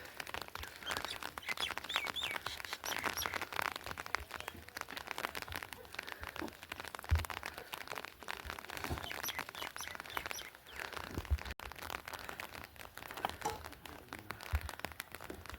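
Birds chirping in short bursts over a steady patter of small clicks, with a few dull low thumps.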